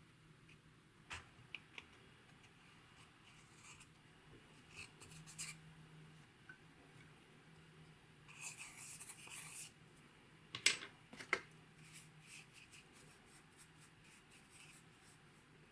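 Close-up handling of makeup and slime: scattered soft clicks and taps, a scraping, rubbing stretch of about a second and a half past the middle, then two sharper clicks.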